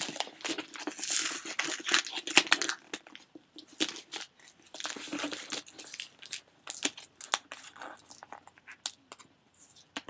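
Packaging being torn open and crinkled by hand, with many sharp crackles and clicks, busiest in the first three seconds.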